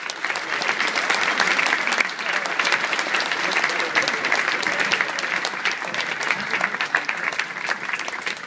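Audience applauding: a dense patter of many hands clapping that holds steady, then thins out near the end.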